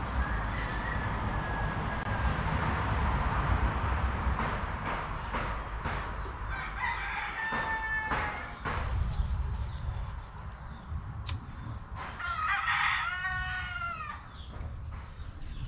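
Rooster crowing: a shorter call about halfway through, then a full crow near the end that rises and falls in pitch.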